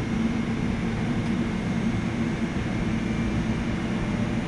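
Tobu 100 series Spacia limited express electric train standing at the platform after its doors close, its onboard equipment giving a steady hum with a low droning tone.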